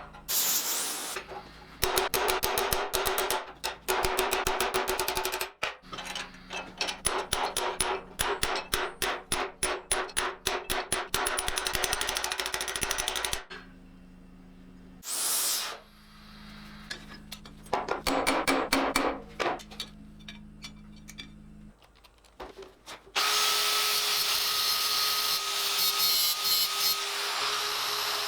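Rapid, evenly paced hammer blows on sheet steel, in long runs with pauses, as a helmet shell is shaped. About three quarters of the way in, a power tool starts and runs steadily with a whine.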